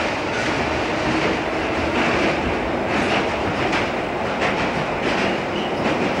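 An underground train running, heard from inside the carriage: a steady rumble and rattle, with wheel clicks over the rail joints about once a second.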